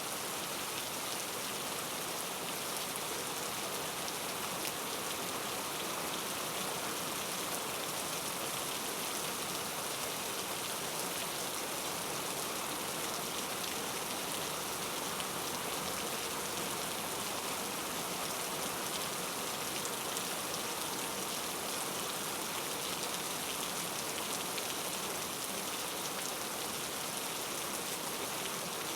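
Steady rain falling: an even, unbroken hiss with fine pattering of drops that doesn't change.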